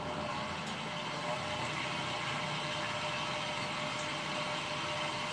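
Electric stand mixer running steadily at low to medium speed, its whisk beating egg whites in a stainless steel bowl at the start of a meringue, before the whites turn frothy.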